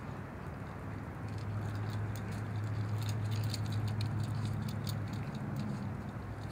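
Quick, light clicking and pattering of footsteps on asphalt as a handler and a small dog move along parked trucks, over a steady low hum that grows a little louder about a second in.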